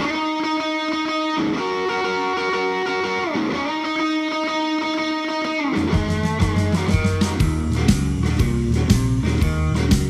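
Background rock music: a guitar holds sustained notes with pitch bends, and about six seconds in a bass line and a steady beat come in.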